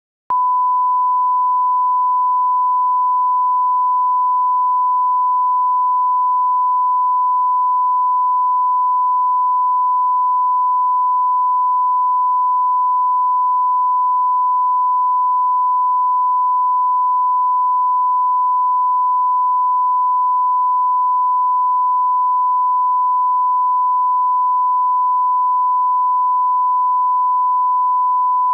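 Steady 1 kHz line-up reference tone, the alignment tone that accompanies SMPTE colour bars at the head of a broadcast master. A single unwavering pure tone that comes in out of silence a fraction of a second in.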